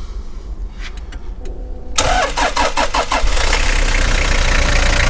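A 2000 Toyota Hiace's 3.0-litre turbo-diesel engine being started: about two seconds in, the starter cranks it for roughly a second, it catches, and it settles into a steady idle. Heard loud, with the engine cover under the front seat lifted open.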